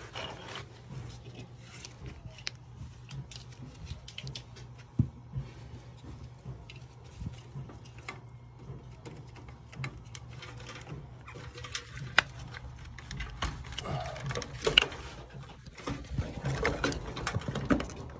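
Scattered clicks, taps and rustling from hands fitting a replacement fan center relay into a boiler's wiring box, with a few sharper knocks, over a steady low hum.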